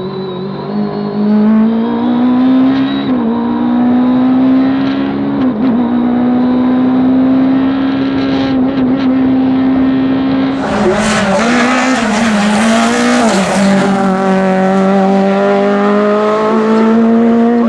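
Race car engine held at high revs on a hillclimb, its note dipping briefly at gear changes about three and five and a half seconds in. About ten and a half seconds in, a loud hissing rush joins and the engine note wavers for a few seconds, then steadies at high revs.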